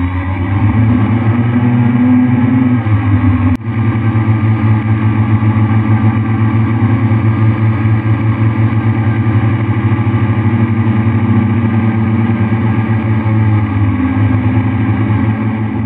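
Multirotor drone's electric motors and propellers running: a loud, steady whine of several tones that waver slightly in pitch, with a brief break about three and a half seconds in.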